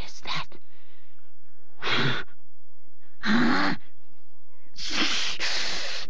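An actress's harsh, rasping demon breathing: a string of hoarse breaths a second or so apart, the third carrying a low voiced groan and the last one the longest.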